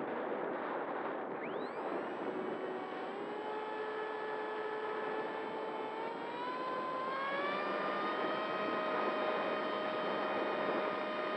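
Wind rushing past the onboard camera, then the XK A1200 glider's electric motor and propeller spin up about a second and a half in, with a whine that rises in pitch. The whine steps higher twice as the throttle is opened further, then holds steady.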